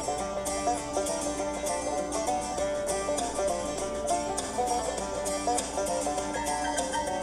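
Background music of quickly plucked string instruments, a rapid stream of short notes at a steady level.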